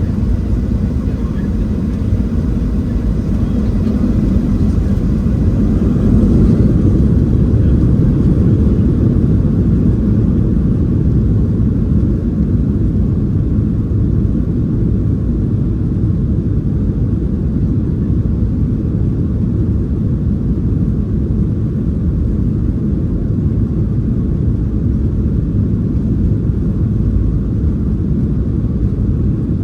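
Cabin noise inside a Boeing 737-700 under high engine power: a steady, deep rumble from its CFM56-7B turbofan engines and the airflow past the fuselage, heard from a window seat, swelling slightly several seconds in.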